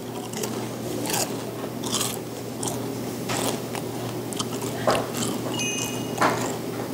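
Close-up crunching of crispy fried chicken batter being bitten and chewed. It comes as irregular crisp crunches, several of them louder and sharper than the rest.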